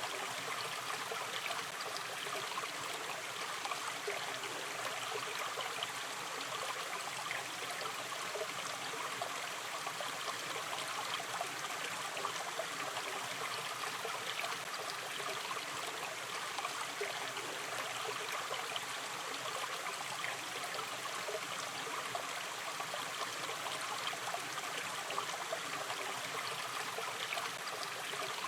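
Shallow river stream running and trickling steadily over stones: a continuous, even babble of water with many small splashes and gurgles.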